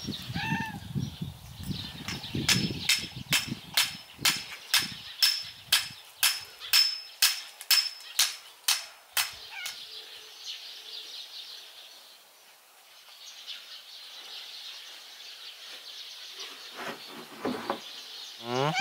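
A cat feeding from a plastic food bag: the bag crinkles and rustles, then sharp, regular crunches of chewing come about two a second for around seven seconds and stop.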